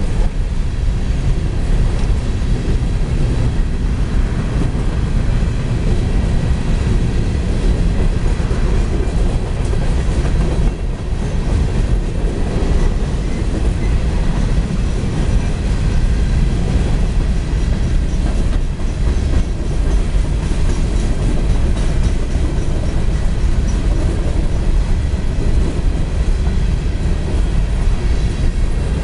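Coal hopper cars of a long CSX freight train rolling past, a loud steady rumble of wheels on rail that dips briefly about eleven seconds in.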